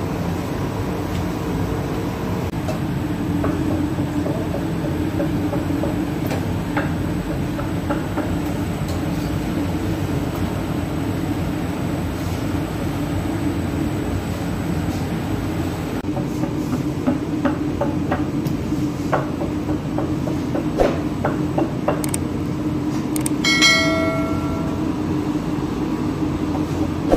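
Steady low hum and rattle of a bakery's conveyor oven and machinery, with scattered light clicks and knocks in the later part. Near the end a short bell-like chime sounds once.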